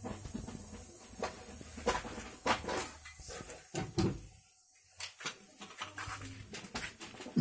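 Irregular clicks and knocks of hands handling a television set and the tools around it, about a dozen in all, over a faint low steady hum.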